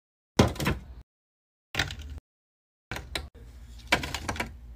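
Hard plastic divided candy tray knocked and handled, and sugar-coated gummy candies clattering as they are dropped into its compartments. Three short bursts, each cut off abruptly, the loudest a sharp knock about half a second in.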